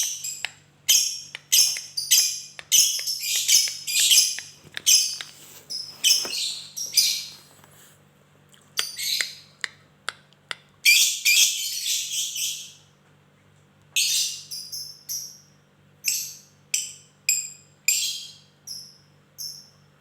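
Lovebird singing in the long 'ngekek' style: rapid, high-pitched chattering calls in long runs broken by short pauses, with sharp clicks ('ngetik') mixed in.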